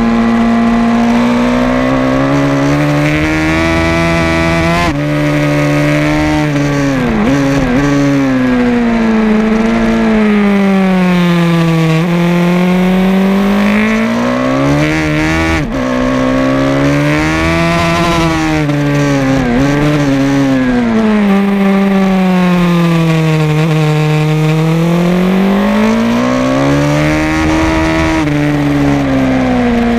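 Onboard sound of a racing motorcycle's engine at race pace. The pitch climbs under acceleration and sinks into the corners, several times over, with a few sudden drops where gears change.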